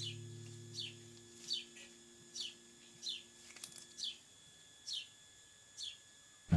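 A bird repeating a short, falling chirp, eight times at a little under a second apart, while low sustained tones fade away over the first few seconds.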